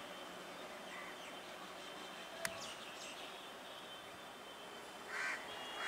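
Quiet outdoor ambience with crows cawing, two harsh caws near the end, over a faint steady background hiss. A single sharp click about two and a half seconds in is the loudest moment.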